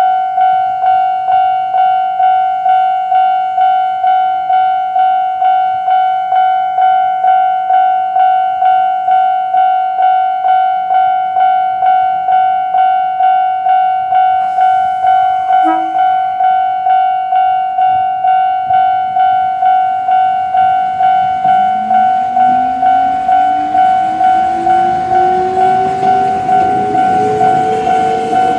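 Japanese level-crossing alarm sounding its older-type standard electronic bell: a ringing 'kan-kan' struck just under twice a second, each strike fading. About three-quarters of the way through, a Kōnan Railway 7000-series train's motor whine comes in under the bell and rises steadily in pitch as the train speeds up.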